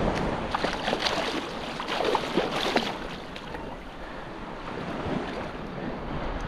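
A striped bass splashing and thrashing in shallow surf as it is grabbed and landed by hand, with short sharp splashes in the first half. Small waves wash over sand and wind buffets the microphone.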